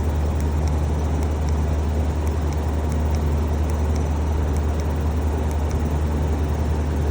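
Outdoor air-conditioning condenser unit running with a steady low hum.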